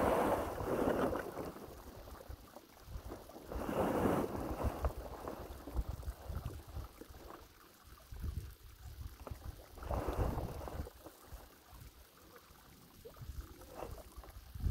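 Wind buffeting the microphone with a steady low rumble, and three gusty swells of rushing noise: at the start, about four seconds in, and about ten seconds in.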